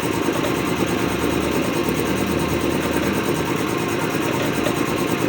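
Puma 5 hp high-pressure piston air compressor running steadily under test, a continuous loud mechanical run with a fast even pulse.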